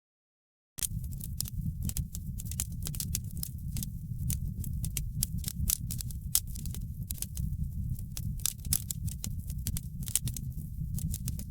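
Wood fire crackling in a fireplace: a steady low noise of the burning fire with many quick, sharp crackles and pops. The fire sound cuts in after a moment of dead silence at the very start.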